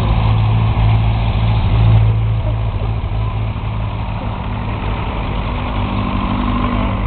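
Engines of vintage farm tractors running as they pass one after another at low road speed: a steady low engine drone, loudest about two seconds in, with another engine's tone coming in near the end.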